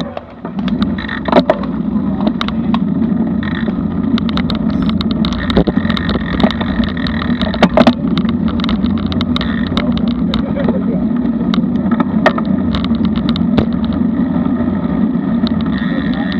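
Wind buffeting an action camera's microphone as a road bike rolls off from a stop and picks up speed, a steady low rumble that swells just after the start. Irregular sharp clicks and knocks from the bike and road run through it.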